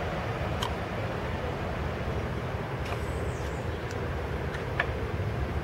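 Steady low rumble from a heritage train standing at a station platform, with a few faint clicks.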